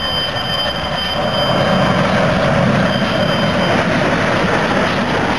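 A steam tank locomotive rolling past close by at low speed, a loud, steady mix of rumbling and running noise with no clear exhaust beat.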